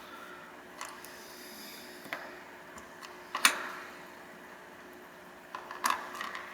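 Handling of small LEGO minifigure parts and packaging: a few scattered sharp plastic clicks and taps, the loudest about three and a half seconds in, with several more close together near the end and light rustling about a second in.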